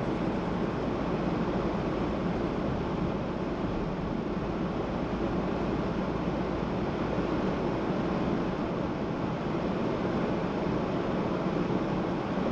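Steady road noise from a car driving: an even rush of tyre and wind noise with no distinct events.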